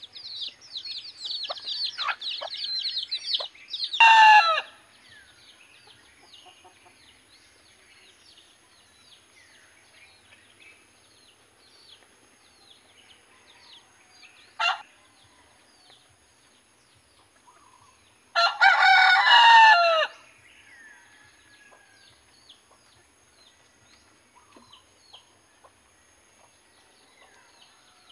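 Native chicken rooster crowing once, loud and about a second and a half long, a little past two-thirds of the way. A shorter loud call about four seconds in and a brief squawk near the middle. Rapid high chirping at the start, with faint bird chirps and a thin high steady whine throughout.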